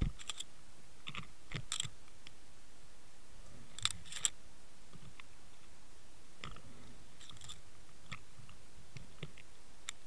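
Underwater sound through a camera rigged on a fishing line: a steady hiss with irregular sharp clicks and knocks. A pair of louder ones comes about four seconds in.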